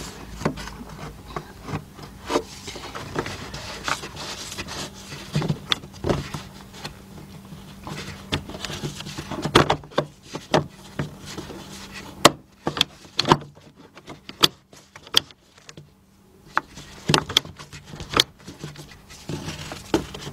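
Plastic fuel-pump locking ring being worked by hand on the fuel tank opening while it is lined up on its threads: irregular clicks, knocks and scraping of plastic on plastic. The clicks come thicker around the middle and again near the end.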